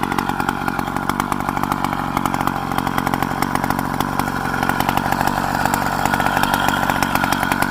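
Small engine of a motorized bicycle running steadily with a fast, even firing rhythm, getting a little louder in the second half.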